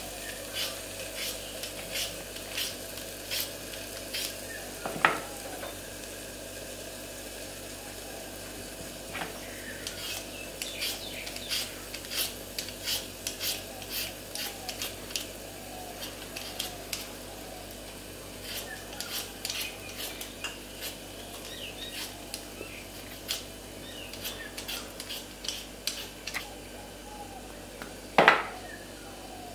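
Handheld Y-peeler scraping the skin off a raw potato in quick short strokes, each a brief rasp. There is a louder knock about five seconds in, and a sharper one near the end.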